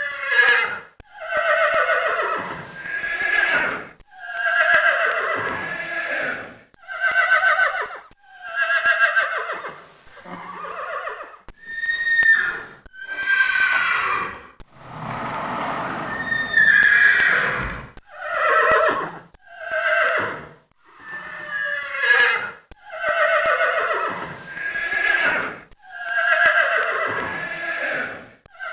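A series of horse whinnies, one after another with short gaps: about a dozen separate calls, each a quavering neigh that falls in pitch over a second or two.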